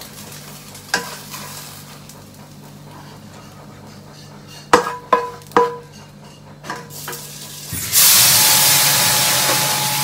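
A wooden spatula knocks three times on a metal frying pan, which rings briefly after each knock. About eight seconds in, a loud steady hiss starts as the hot frying pan goes under the running tap, sizzling and steaming.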